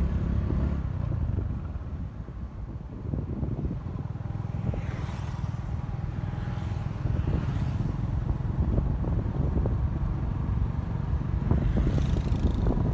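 Steady low rumble of a road vehicle in motion, heard from on board: engine and road noise.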